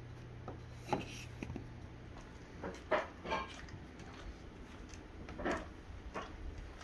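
A handful of short, quiet taps and scrapes spread over several seconds, typical of a cardboard tube being picked up and handled, with no growling.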